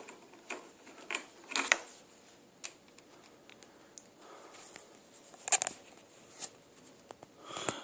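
Small clicks, taps and rustles of a plug and cable being handled and pushed into a bicycle light's socket, loudest about five and a half seconds in.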